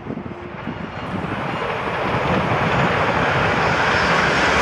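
MTR Airport Express A-Train approaching at speed, its rushing noise growing steadily louder as it nears.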